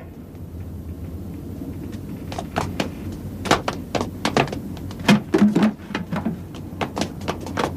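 Footsteps and knocks of people running and jumping across a rooftop: a string of irregular thuds and bangs starting about two seconds in, over a low steady hum.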